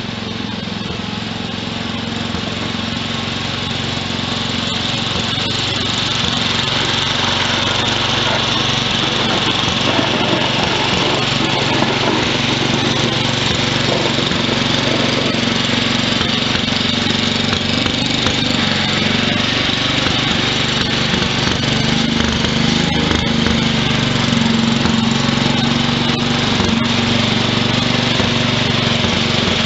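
1963 Wheel Horse 633 garden tractor engine running steadily under load while pushing a snow dozer blade, growing louder as the tractor comes closer.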